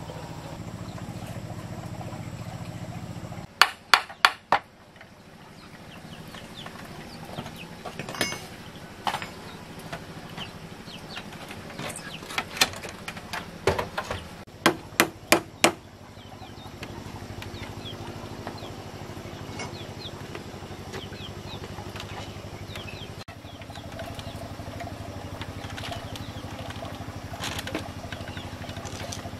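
Hand-tool strikes on bamboo: sharp knocks in quick runs of about four, plus scattered single knocks, over a steady low hum.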